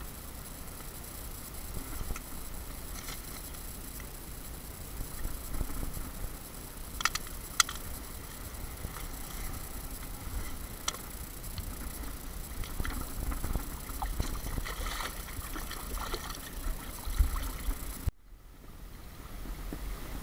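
Scattered clicks and scrapes of a cord stringer and fishing gear being handled on wet riverbank rocks, over a steady low rumble. The sound cuts off abruptly near the end and comes back quieter.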